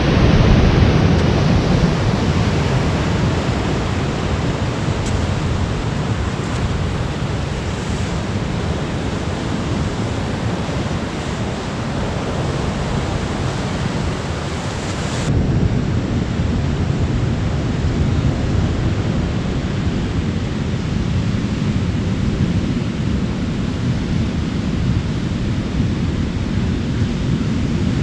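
Ocean surf breaking on a rocky shore, with wind on the microphone: a steady rushing hiss and low rumble. About fifteen seconds in the sound changes abruptly, losing its high hiss and becoming a duller, lower rush.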